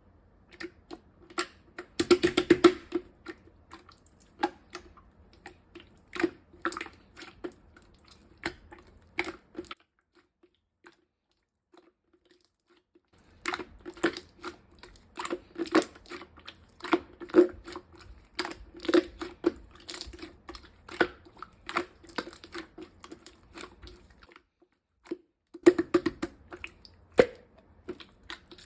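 Light-green clear slime being squished and pressed by hand, giving rapid runs of small wet clicks and pops. The clicking stops twice, about ten seconds in for roughly three seconds and again near the end for about a second.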